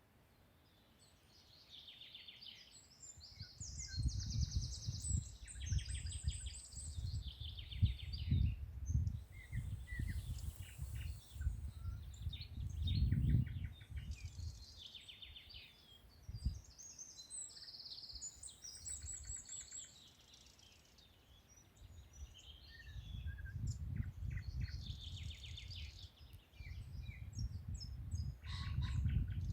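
Several songbirds singing and chirping, with quick trills and repeated high notes throughout. A low rumble, louder than the birds, swells in for long stretches in the first half and again near the end.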